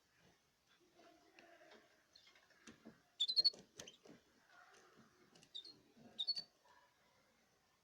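Caged canaries giving short, high chirps: a quick cluster about three seconds in and a few more around six seconds, among light clicks and rustling.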